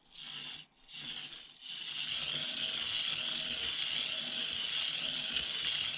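Tiny 1/76-scale RC car's electric motor and gears whirring, a few short throttle blips cutting in and out before it runs steadily.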